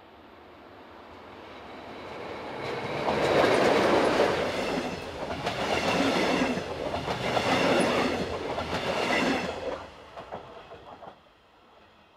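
Regional train of red double-deck coaches passing close by at speed: a rising rumble as it approaches, then a loud rush with a rhythmic clatter of wheels, swelling about every two seconds as each coach goes by, and dying away quickly about ten seconds in.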